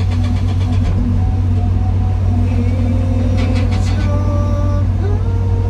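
Excavator's diesel engine running steadily with a deep drone, with thinner higher tones coming and going over it from about halfway through.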